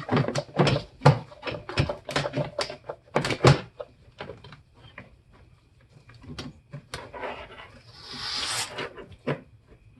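Clicks, knocks and rattles from a car's interior door panel and its trim being taken off by hand. They come thick and fast for the first few seconds and sparser after, with a brief scraping rush about two seconds before the end.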